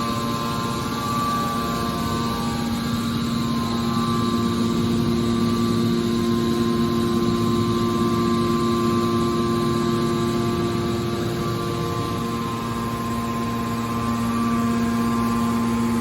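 Hydraulic car scrap baler's power unit running, a steady pitched hum that eases slightly near the end and then comes back.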